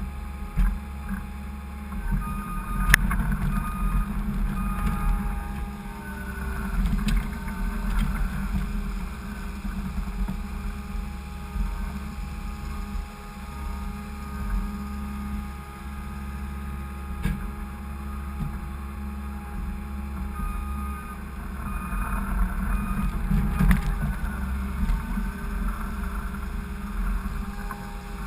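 Skid steer's engine running steadily, with a few sharp knocks, the loudest about three seconds in.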